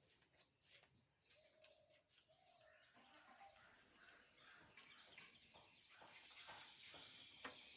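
Near silence: faint scattered clicks and a few short, faint chirps, with a low hiss that slowly grows louder.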